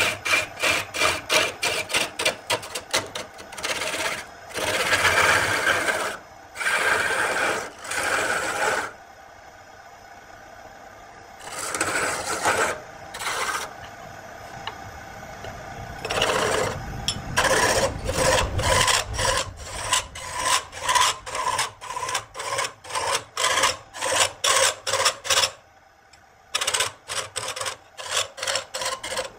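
A turning gouge cuts a spinning wooden spindle on a lathe, throwing shavings. It makes a rapid run of rasping cuts, about four a second, broken by a few longer unbroken cuts and brief lulls.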